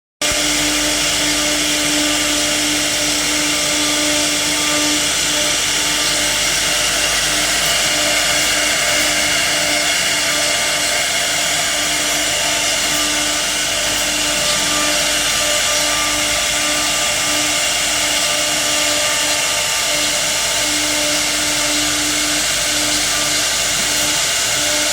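CNC router cutting a wooden drawer front: a steady, loud whine and rush of machine noise, with a low hum that cuts in and out.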